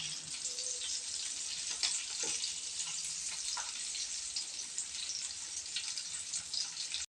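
Tap water running into a kitchen sink while dishes are washed, a steady splashing hiss with a few light clinks of utensils.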